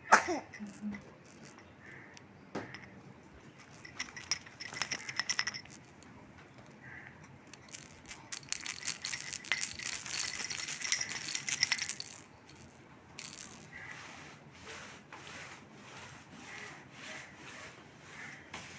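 A baby's rattle toy being shaken in two spells of fast clicking, the second longer and louder, then a few scattered shakes. A brief sharp sound slides down in pitch right at the start.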